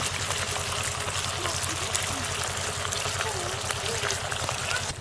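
Trout fillets sizzling in butter in a steel pan over a camp firebox, a steady crackle with many small pops, over a low steady hum. The sizzle stops abruptly at the very end.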